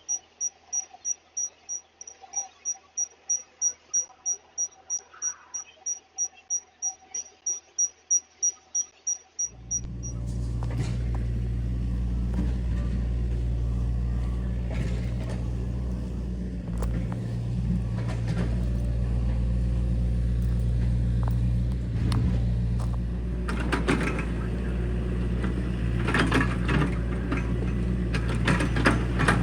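Rapid high-pitched electronic beeping, about three beeps a second, for the first ten seconds. Then a heavy truck's diesel engine starts running steadily at a low pitch, with knocks and clatter over it near the end.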